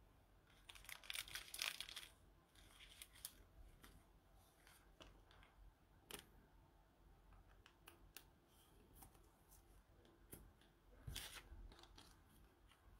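Faint rustling and scraping of glossy trading cards handled in gloved hands, sliding against each other, with short bursts about a second in and again near the end and a few soft ticks between.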